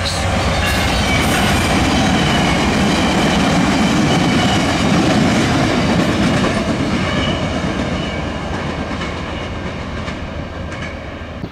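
Via Rail passenger train led by a GE P42DC diesel locomotive passing close by, its wheels rumbling on the rails. A few faint high whistling tones sit over the rumble. The sound eases off over the last few seconds as the cars roll away.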